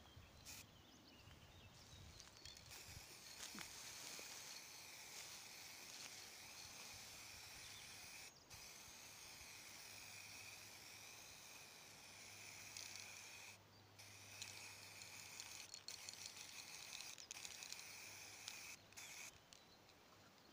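Aerosol spray-paint can hissing as paint is sprayed, faint and steady, starting about three seconds in and broken by a few brief pauses.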